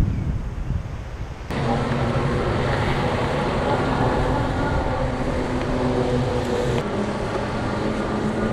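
Wind rumbling on the microphone, then from about a second and a half in, the steady hum of a Hovsco fat-tyre e-bike's electric motor under way, with tyre and wind noise as it rides over the sand.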